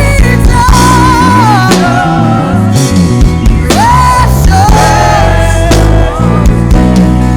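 Live church worship band music: a steady low bass and drum pulse under a sliding, held melody line.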